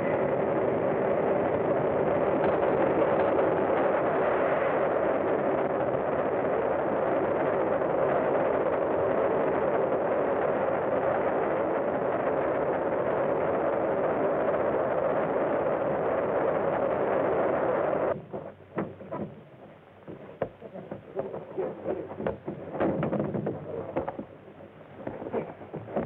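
Steam locomotive running, a loud, steady rushing rumble that cuts off suddenly about 18 seconds in. After it come quieter, scattered knocks.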